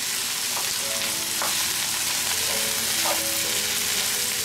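Sausages and vegetables sizzling steadily as they are stir-fried in a hot frying pan, with a few light taps of wooden utensils against the pan as the chili powder is stirred in.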